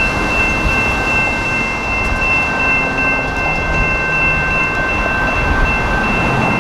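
Railroad grade-crossing warning bell ringing steadily at an activated crossing. Under it runs a continuous noisy rumble from the approaching light-rail train.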